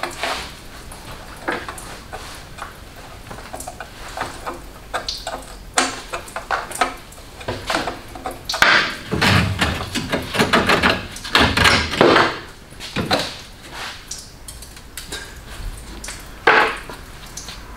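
Hand tools clinking and clanking against metal engine parts: irregular metallic clicks and knocks, busiest from about halfway through, with one sharp clank near the end.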